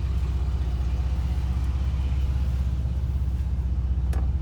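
Steady low rumble of a 2009 Nissan Cube's engine and road noise heard from inside the cabin while driving, with a single sharp click about four seconds in.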